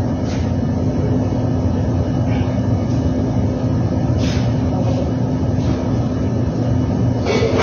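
Steady drone of running machinery with a constant low hum. Several short knocks and clicks sound over it, the loudest near the end.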